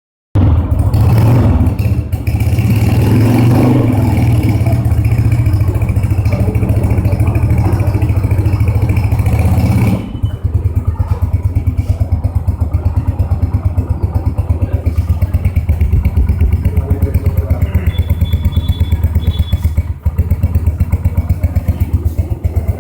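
Honda CG 125's single-cylinder four-stroke engine running. It runs louder for about the first ten seconds, then drops to a quieter idle with an even, pulsing beat.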